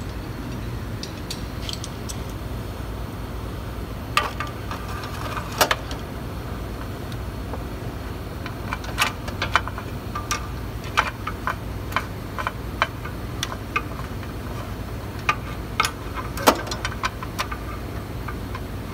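Irregular sharp metallic clinks and taps of hand tools and steel bolts while transmission bell-housing bolts are started, over a steady low hum. The clinks come in scattered clusters from a few seconds in until near the end.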